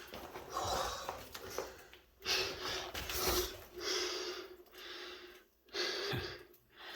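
A person breathing hard: a string of loud breaths in and out, about one a second, from the exertion of crawling through a tight passage.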